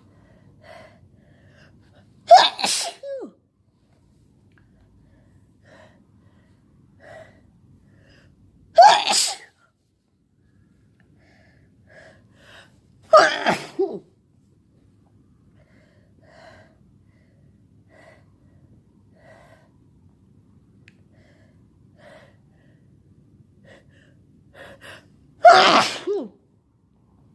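A sick person's sneezing fit: four loud sneezes spread several seconds apart, each with a short trailing tail, and faint gasping breaths in between.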